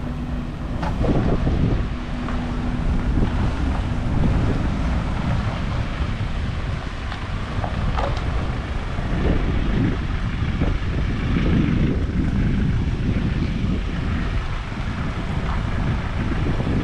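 Wind buffeting the microphone, with an uneven low rumble underneath.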